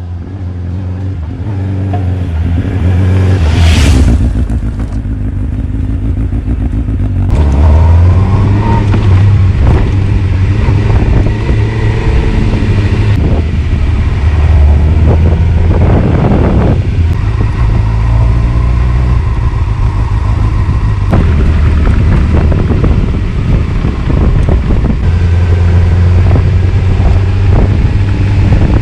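Honda CBF600's inline-four engine running as the motorcycle is ridden, its pitch rising and falling again and again with throttle and gear changes.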